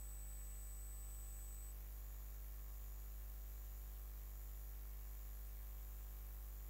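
Faint steady electrical hum with light hiss: the recording's background noise, with a thin high whine that stops about two seconds in.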